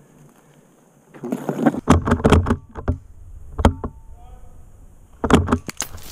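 Airsoft guns firing in an exchange of shots: sharp, loud cracks in quick clusters starting about a second in, a couple of single shots near the middle, and another burst near the end.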